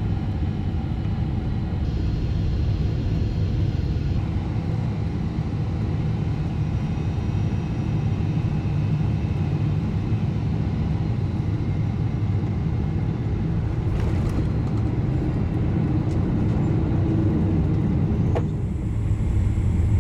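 Steady low rumble of a Boeing 777-200ER airliner's cabin on approach, heard from inside the cabin. A single sharp knock comes near the end, and the rumble grows a little louder after it.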